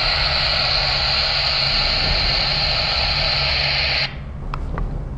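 Spirit box (a radio that sweeps through stations) giving out steady, loud radio static, which cuts off suddenly about four seconds in; two faint clicks follow.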